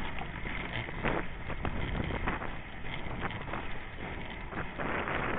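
Inline skate wheels rolling fast over rough, cracked asphalt: a steady rolling rumble with irregular clicks and rattles, with wind buffeting the microphone. The rushing grows louder near the end.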